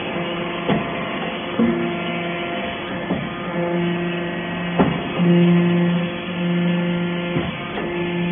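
Hydraulic metal-chip briquetting press running: a steady humming tone that switches on and off in spells of about a second as it works, with occasional sharp knocks.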